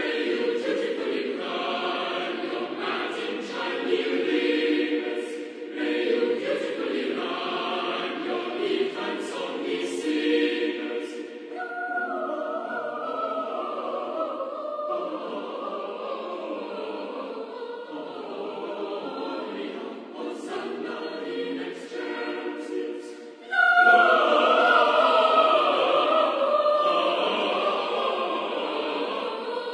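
A choir singing recorded choral music in long, sustained phrases. A louder phrase starts abruptly about three-quarters of the way through.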